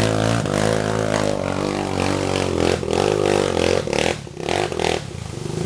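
Motocross bike engine revving up and down under load, with clattering and knocks from the bike working over rough ground. The revs drop about four seconds in.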